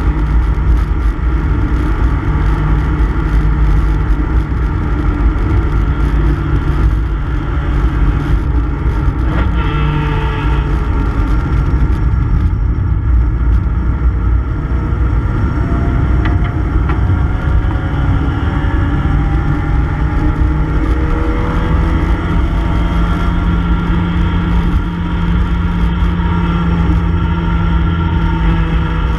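Race-prepared Mini Cooper S's four-cylinder A-series engine at racing speed, heard loud from inside the cabin. The revs ease off around twelve seconds in and climb steadily again from about sixteen seconds, holding high near the end.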